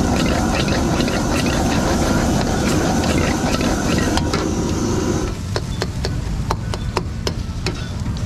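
Metal ladle scraping and clanking in a wok as chow mein noodles are stir-fried over a gas wok burner, with a steady rushing sound under the strokes. About five seconds in the rushing drops away, leaving sharp, separate ladle clanks.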